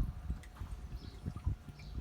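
Water splashing out of a just-opened gate valve on a pump's outlet line as the line's pressure is released, with faint bird chirps.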